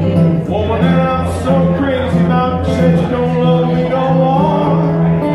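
A man singing while playing an acoustic guitar, a solo live song with held bass notes under the vocal line.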